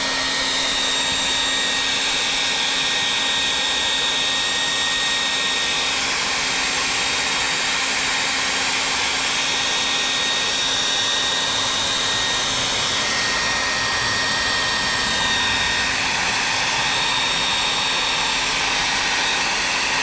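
Handheld Revlon hair dryer running steadily on its highest setting: an even rush of blowing air with a thin high whine. It is heating vinyl boat lettering to soften the adhesive for peeling.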